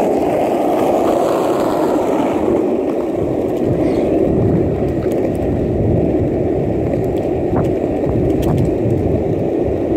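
Mountain board's wheels rolling over asphalt: a steady rumble, with a few light clicks in the second half as it runs over small bits on the road.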